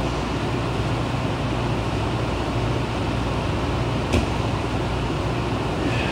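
Steady rushing air with a low hum from gym fans running, and one sharp click about four seconds in.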